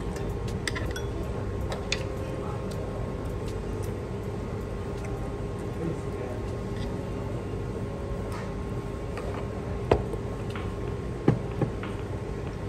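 Chopsticks clicking against a pot and bowl while eating, over a steady hum; three sharper knocks come about ten and eleven and a half seconds in.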